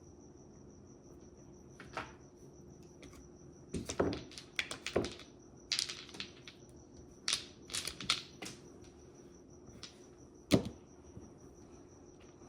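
Mahjong tiles clicking and clacking against each other and the table as they are picked up, flipped and set down, in irregular clusters, with one sharp loud knock about ten and a half seconds in.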